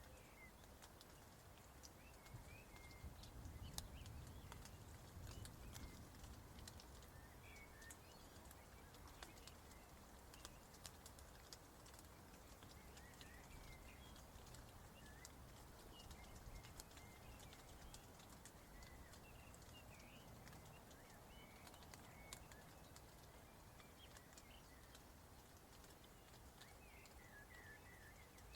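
Faint outdoor ambience: small birds give short chirps now and then over a low rumble, with scattered light clicks.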